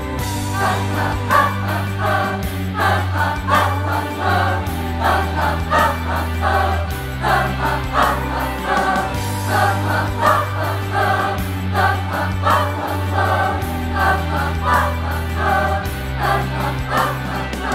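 Group of voices singing together over music with sustained bass notes: a pop ballad sung by an amateur choir.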